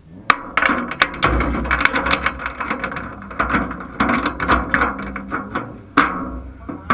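Rapid, irregular clattering knocks and rattles over a steady low rumble.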